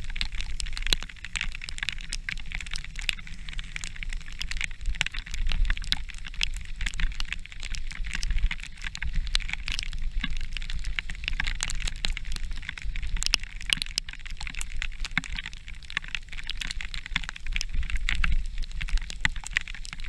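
Mountain bike riding a wet, muddy dirt track, heard through a bike-borne action camera: a continuous rattle of knocks and clicks from the bike and camera mount, with crackling of tyres and rain over a low rumble.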